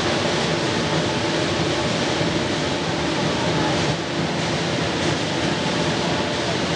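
Steady, dense din of a packed sports hall during a massed lion dance display: crowd noise and the troupes' commotion blended together, with no single sound standing out.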